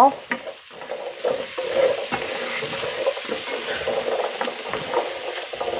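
Cubed turnip sizzling as it fries in a nonstick pan, with light scrapes and taps from a utensil tossing the pieces.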